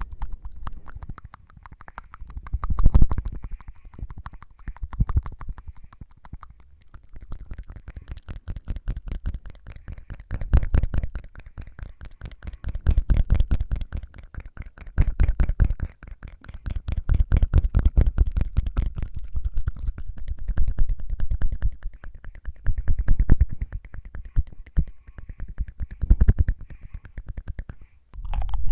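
Close-miked ASMR tongue fluttering: rapid wet flutters and clicks of the tongue in the mouth, coming in bursts of a second or two with short pauses between.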